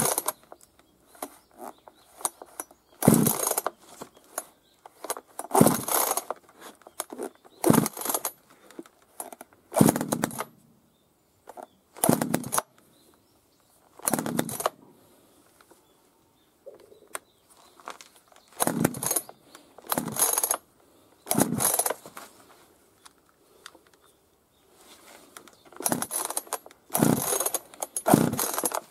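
Hitachi two-stroke chainsaw being pull-started again and again: about a dozen sharp pulls of the recoil starter, roughly two seconds apart with a pause midway, the engine turning over without catching. It is a hard-starting saw, which the owner puts down to the carburettor not feeding fuel because its diaphragm has lost its elasticity.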